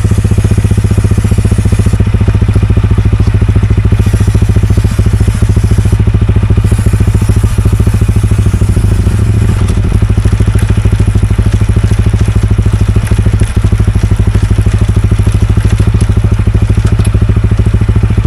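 TVS Ronin 225's single-cylinder engine running steadily at close range, with an even, rapid firing beat. The freshly cleaned chain no longer makes its earlier noise.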